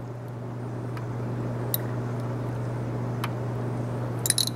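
Steady low background hum with a few faint light clicks, then a quick cluster of sharper clicks near the end, from a plastic dropper and spot plate being handled while solution is dropped into the wells.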